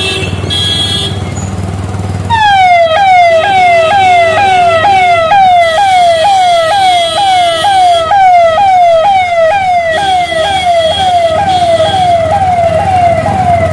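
Electronic siren on a vehicle, sounding a rapid repeating falling yelp, about two and a half sweeps a second, that starts a couple of seconds in over a running engine.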